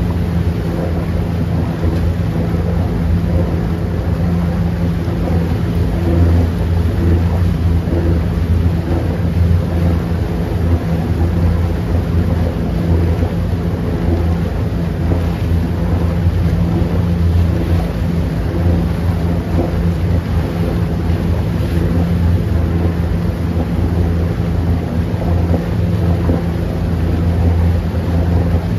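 Motorboat engine running steadily at cruising speed, a low drone with a steady hum, over the churning water of the propeller wake.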